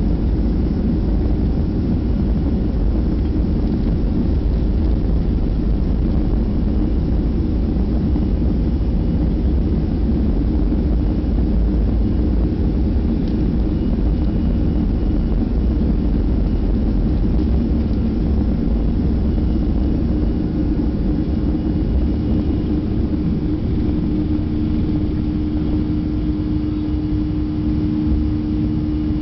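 Boeing 737-300 airliner on its take-off run and climb-out, heard from the cabin beside its CFM56 engine: a loud, steady rumble at take-off thrust, with a steady hum coming in over the last few seconds as it climbs away.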